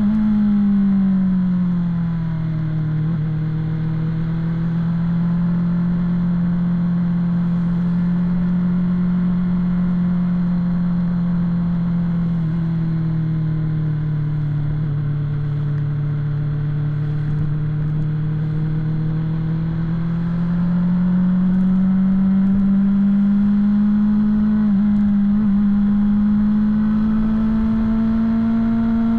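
BMW S1000RR inline-four engine running at cruising revs. The revs drop in the first couple of seconds, ease down a little more about midway, and climb back up about two-thirds of the way through.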